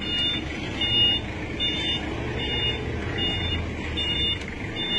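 A vehicle's reversing alarm beeping steadily, a short high beep about every 0.8 seconds, over the low rumble of a running engine.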